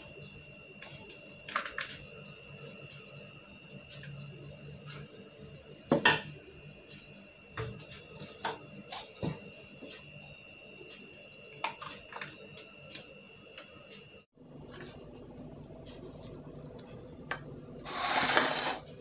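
Metal ladle clinking and knocking against a cooking pot as tomato sauce is ladled into plastic cups, with scattered clinks and clunks, the loudest about six seconds in. Near the end comes a short scraping noise lasting about a second.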